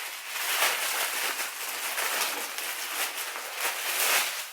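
Packaging rustling and crinkling as a hoodie is pulled out of a mystery box, a continuous crackly rustle that fades near the end.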